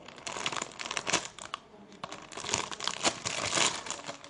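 Thin plastic packaging crinkling and crackling as it is handled, in dense irregular bursts, busiest in the second half.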